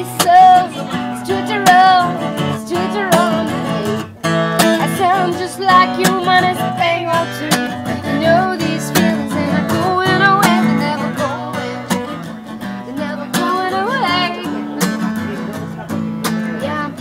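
Acoustic guitar being strummed, with a wavering, bending melody line over the chords.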